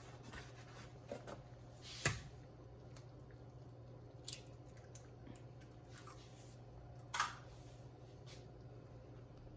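Three eggs cracked one after another against the pot, each a short sharp crack, about two, four and seven seconds in, with a few fainter ticks between them.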